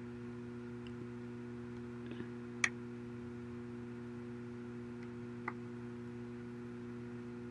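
A few light, sharp clicks of a small screwdriver and tiny iPhone 5 screws being handled: two soft ones about two seconds in, a crisper one just after, and another about five and a half seconds in. Under them runs a faint steady hum.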